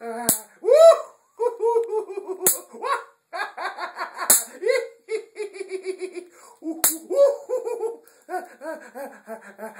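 A person's high-pitched, rapid laughter, broken four times by a sharp snap of an electric bug zapper as it hits the centipede.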